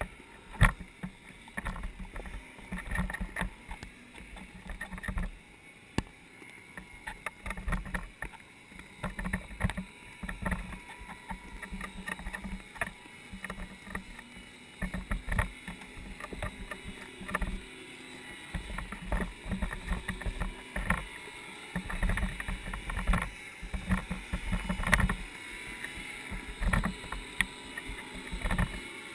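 Irregular muffled knocks, clicks and low thumps over a steady water background, picked up by a camera submerged in its waterproof housing. A faint steady hum comes and goes.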